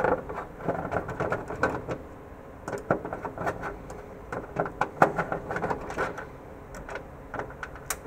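Screwdriver turning screws out of a tape library's door panel: irregular runs of small clicks and scrapes, in several short bursts.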